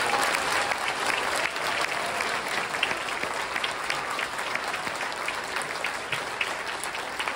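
Audience applauding: many hands clapping in a dense, even patter that tapers off slightly toward the end.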